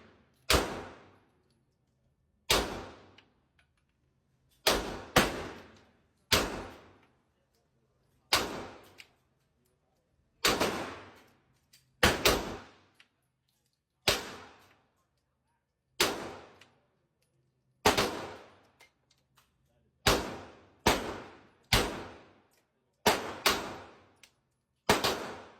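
Gunshots at a shooting range, fired singly at irregular intervals of one to two seconds, some in quick pairs, about twenty in all; each sharp crack is followed by a short echoing decay.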